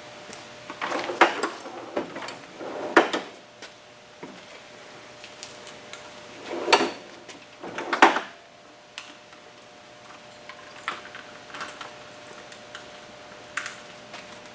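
Clunks and rattles of tools and parts being handled during work on a car. Four louder knocks come in the first eight seconds, then a few faint ticks.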